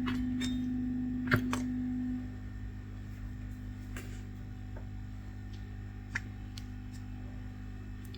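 A steady hum from bench equipment that cuts out about two seconds in, over a fainter mains hum, with a few light clicks of small tools. The sharpest click comes just over a second in.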